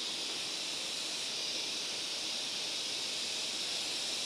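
Steady, even outdoor background hiss, strongest in the high range, with no distinct events.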